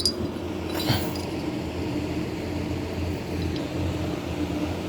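Steady low mechanical hum of a fan or motor running, with a light metallic click at the start and another about a second in.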